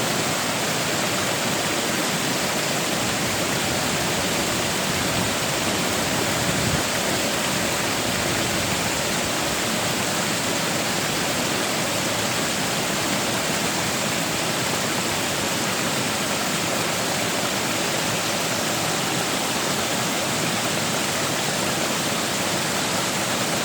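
Waterfall: a steady, loud rush of falling water with no change throughout.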